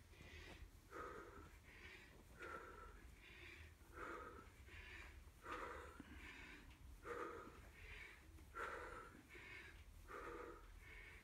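A man breathing hard and rhythmically while exerting himself in a squat-kick cardio exercise, about one faint breath every three quarters of a second.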